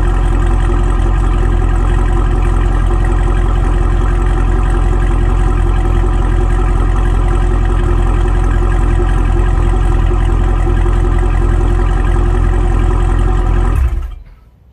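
Chevrolet SS's 6.2-litre LS3 V8 idling steadily through its exhaust, then shut off near the end, the sound dying away within about a second.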